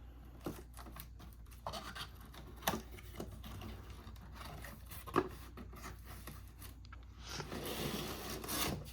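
A product box being opened and its contents handled: scattered scrapes, taps and small knocks, with a longer rustling slide near the end.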